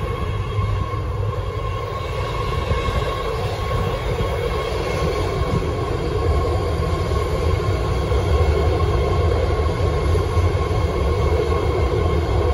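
BART Fleet of the Future train pulling into an underground station and running along the platform: a steady rumble with a steady high whine over it, growing louder about halfway through as the cars pass close by.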